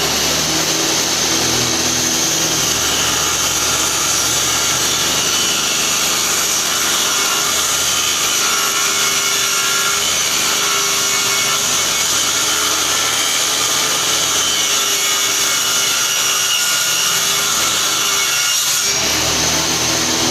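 Homemade table saw running at full speed with a steady high whine, its blade cutting wood with a rough sawing noise; the sound changes briefly near the end.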